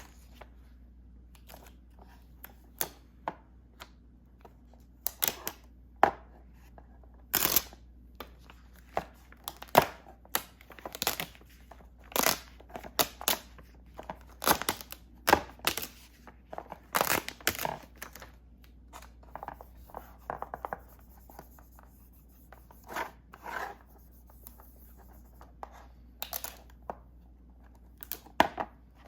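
Plastic film and dust-removal sticker from a screen protector kit being handled and peeled: irregular short crinkles, taps and tearing sounds.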